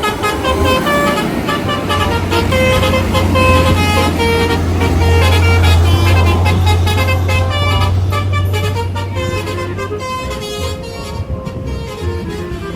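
Telolet horn on a passing bus playing a rapid tune of short notes that step up and down in pitch. Under it runs the low rumble of the bus's engine, which swells and then fades as the bus goes by.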